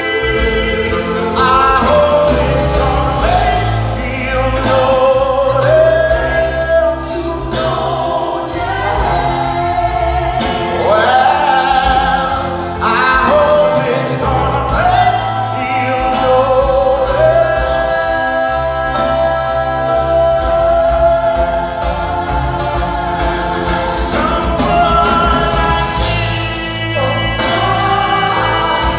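Live band playing with piano, upright bass, drums and saxophones behind several singers, male and female voices singing together in a soulful, choir-like blend.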